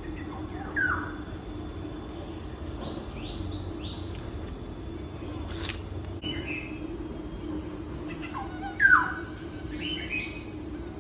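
Birds calling in short chirps that slide downward in pitch, several times, the loudest about nine seconds in. A steady hum runs underneath.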